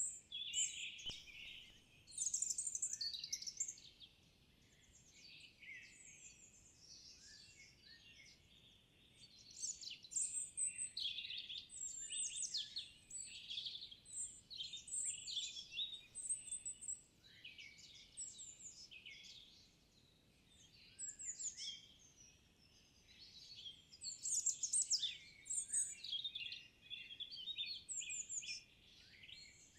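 Forest songbirds singing, a dense mix of overlapping chirps and trills that eases off in a couple of quieter stretches.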